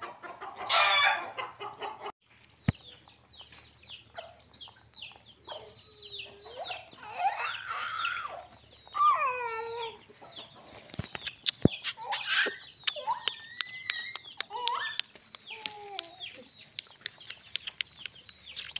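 Chickens clucking and calling, with many short, high, falling peeps from chicks. A loud call opens the stretch, and a run of sharp clicks comes through the second half.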